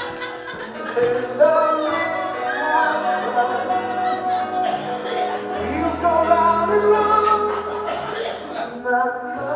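Recorded music with a singing voice, playing as a performance soundtrack.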